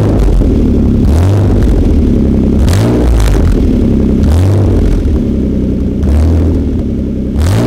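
Engine of a 2007 Renault Samsung SM7 3.5 V6 revved about six times, roughly once every second and a half, through a loud exhaust. The exhaust has become so loud that the owner says the car sounds like a racing car.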